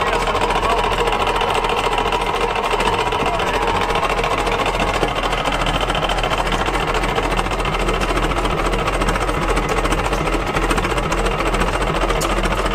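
Antique engine running at a steady speed with a fast, even mechanical clatter.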